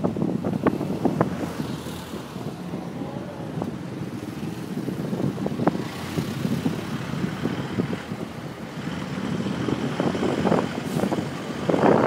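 Moving vehicle's engine and road noise, with wind buffeting the microphone and frequent short knocks and rattles; louder again near the end.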